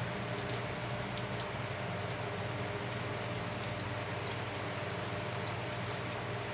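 Scattered faint light ticks of small repair tools and phone parts, such as a screwdriver, tweezers and tiny screws, over a steady electrical hum and hiss.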